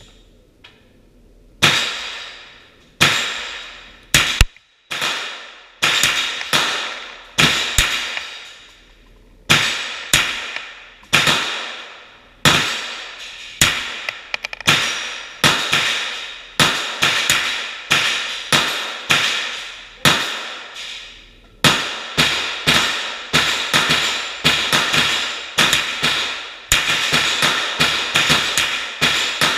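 A SIG 516 rifle converted to .22 rimfire firing single semi-automatic shots, roughly one to two a second from a couple of seconds in. Each sharp report trails off in echo down the enclosed tunnel range.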